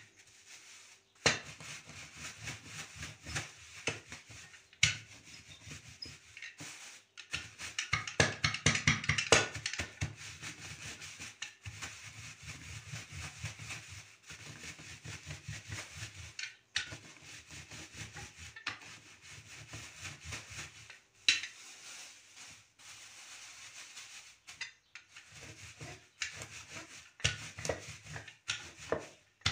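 Shelled walnuts in a plastic bag being crushed under a wooden rolling pin, worked back and forth: crunching and crackling of the nuts, with the plastic crinkling and the pin rubbing. A few sharp knocks stand out.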